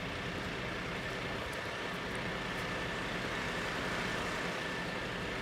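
Steady engine hum of idling emergency vehicles at the scene, with a thin steady whine above it.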